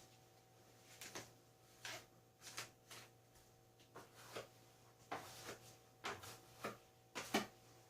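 Putty knife spreading a paste coating across a wall: a dozen or so short scraping strokes in an uneven rhythm, the loudest near the end.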